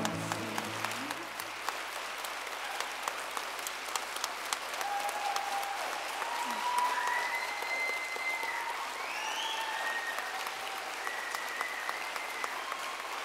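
Audience applauding, a dense patter of handclaps, with a few faint held calls over the clapping from about the middle.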